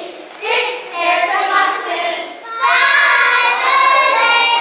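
A group of preschool children singing together in unison, growing louder on a held stretch from about two and a half seconds in.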